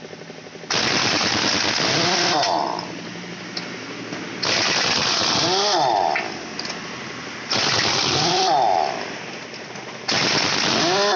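Pneumatic impact wrench working on the wheel nuts of a JCB backhoe tyre, run in four rattling bursts of about a second and a half each, with a short whirring wind-down after each burst.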